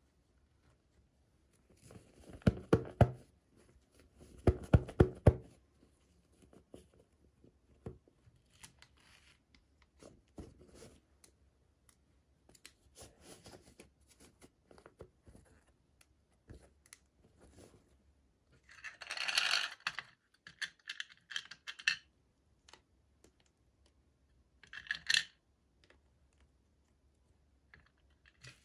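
Hands unboxing small plastic toys: scattered clicks and knocks of plastic pieces, with bursts of packaging crinkling or tearing about two-thirds of the way through and again near the end.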